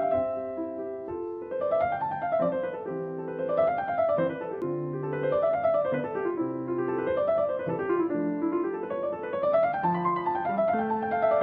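Piano music: rolling arpeggios that rise and fall in repeating waves, with lower held notes beneath.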